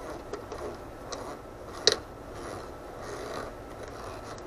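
Small hand screwdriver turning a screw into the plastic motor mount of a model engine: faint scraping with small clicks, and one sharper click about two seconds in.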